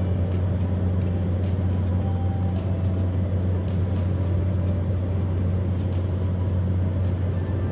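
Steady low drone of a light tour aircraft's engine, heard from inside the cabin.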